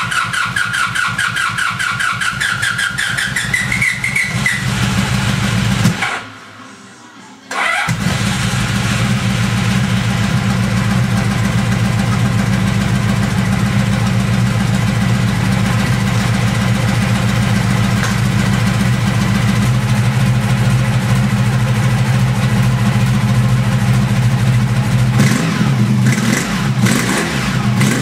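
Honda VF1000R's 1000 cc V4 motorcycle engine being started for the first time on swapped-in VF1000F carburetors. The electric starter cranks for about six seconds with a rising whine, stops, and after a short pause the engine catches and settles into a steady idle. Its pitch shifts briefly near the end.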